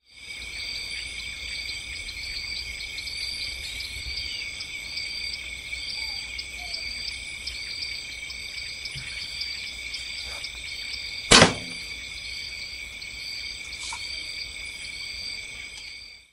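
Steady outdoor insect chorus: several high, even drones with a small chirp repeating over them. About eleven seconds in comes a single loud, sharp impact.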